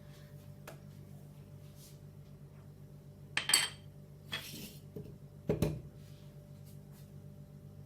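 Metal spoon knocking against a dish while honey and ginger are mixed: a few separate clinks, the loudest about three and a half and five and a half seconds in, over a low steady hum.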